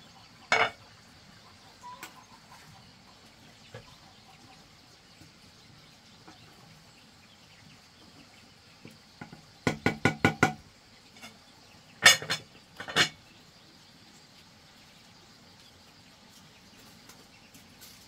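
Sharp knocks and clinks of hard objects being handled. There is one about half a second in, a quick run of about six near the ten-second mark, and three more a couple of seconds later.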